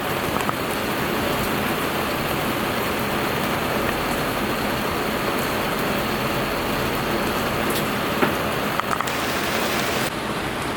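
Steady rain falling, with scattered drop clicks over an even hiss.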